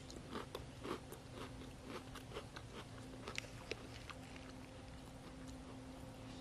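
Close-up chewing of a mouthful of small, crunchy round sugar cereal balls in milk: soft, irregular crunches, over a faint steady hum.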